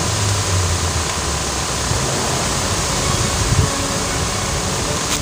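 Wind buffeting the microphone: a steady rushing noise, with stronger low rumbling gusts near the start and again around three and a half seconds in.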